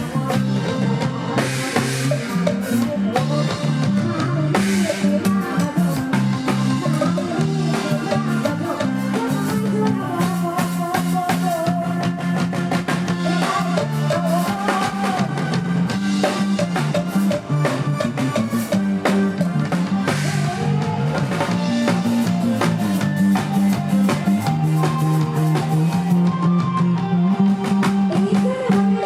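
Live band playing an instrumental stretch of Isan-style Thai dance music: drum kit keeping a steady beat under a stepping bass line and a melody line.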